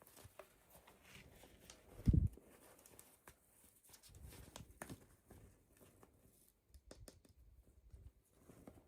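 Handling noises from unboxing toys: light plastic clicks and scrapes, with one dull thump about two seconds in.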